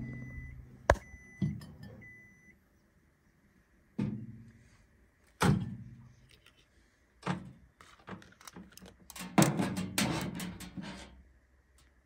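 A Candy microwave oven gives three faint end-of-cycle beeps, weak because its beeper buzzer on the control board is faulty. The door latch clicks open about a second in, and a ceramic mug is lifted out and set down on the microwave's top, with a run of knocks and thuds near the end.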